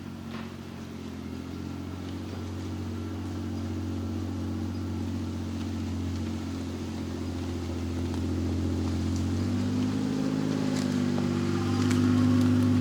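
Kawasaki Mule utility vehicle's engine running as it is driven, slowly growing louder, with its pitch shifting about ten seconds in.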